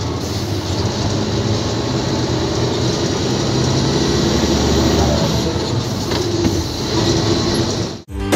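Isuzu tractor truck's diesel engine running steadily under way, heard inside the cab with a steady road rumble. It cuts off abruptly near the end, and music starts right after.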